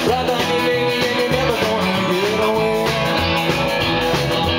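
A live rock and roll band playing, with electric guitar to the fore.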